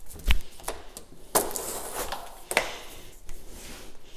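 Patio door filler pieces being pulled out of the frame and handled: several separate knocks and clicks, the loudest with a dull thump about a third of a second in.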